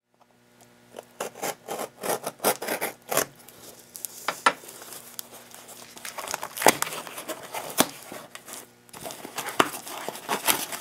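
A cardboard shipping box being opened by hand: a hobby knife scratches and slits along the packing tape in a run of quick scraping strokes. The cardboard flaps are then pulled and rubbed open, with a few sharp snaps and a short pause before more scraping. A faint low hum sits underneath.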